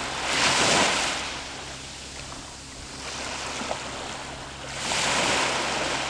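Waves breaking and washing up on a beach: two surges of rushing water, one near the start and one near the end, over a steady low rumble of surf.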